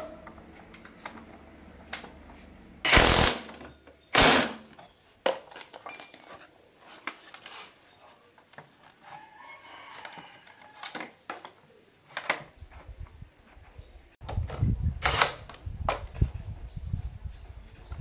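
Two short bursts of a cordless impact driver, about three and four seconds in, then scattered clicks and knocks of metal parts and bolts being handled, with a rougher run of knocking and a couple of sharp clacks near the end as the rear hub cover is worked off.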